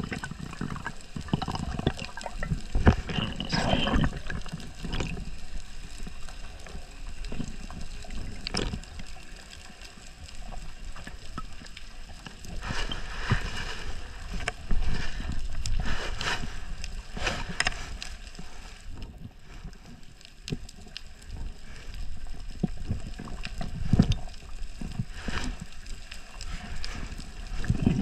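Underwater sound picked up by an action camera on a freediving spearfisher: muffled water movement and low rumbling, with scattered sharp clicks and crackles and a few louder surges.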